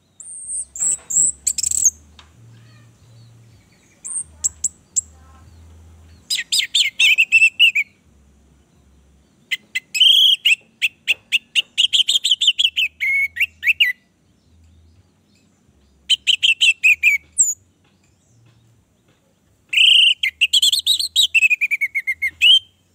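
Orange-headed thrush singing: a few thin, high call notes, then four bursts of rapid, high twittering song with short gaps between them, the phrases often sliding down in pitch at their ends.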